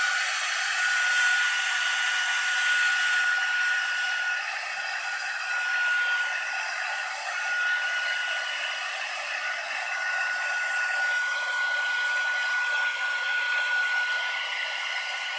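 Handheld hot-air blower running steadily with a high, even whine over a rushing hiss, drying a wet coat of gesso mixed with acrylic paint.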